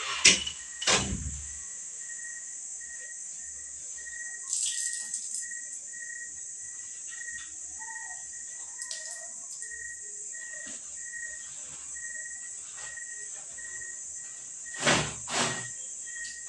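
Wet laundry being shaken out by hand: two sharp snaps of cloth at the start and two more near the end. Between them a faint insect chirp repeats steadily, about twice a second.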